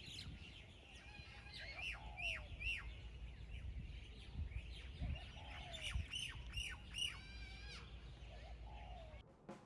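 Small birds chirping: short calls that slide down in pitch, coming in two runs of three or four, over a low rumble of background noise.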